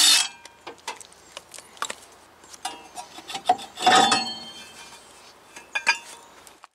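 A short burst from a cordless impact driver at the rear hub, then metal clinks and scraping as a 2017 Honda Civic's rear brake rotor is worked off the hub. About four seconds in the steel rotor comes free with a clang that rings briefly.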